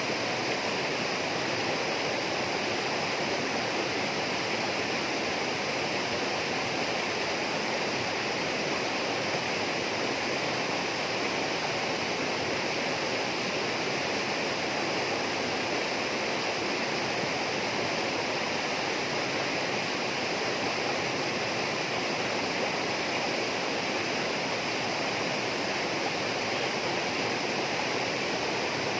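Flowing water rushing steadily at an even level, with no change through the stretch.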